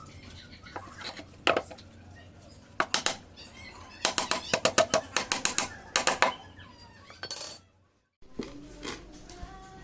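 Sharp taps and clicks, some single and some in quick runs of several a second.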